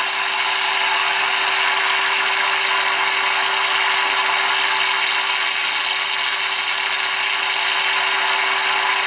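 Roberts Rambler transistor radio's loudspeaker giving a steady hiss with a faint steady tone running through it: the signal generator's turned-down test signal being received during medium-wave alignment, as the set is peaked for maximum output.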